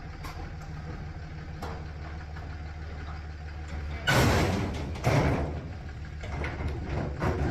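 Pickup truck engine idling steadily, with loud clattering crashes about four seconds in, again a second later and twice more near the end.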